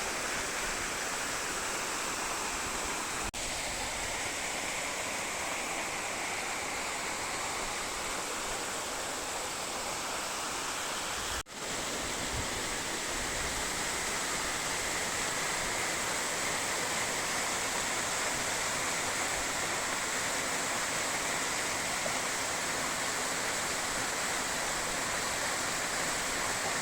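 Steady rush of falling water from a forest waterfall and stream. It cuts out for an instant about three seconds in and again about eleven seconds in.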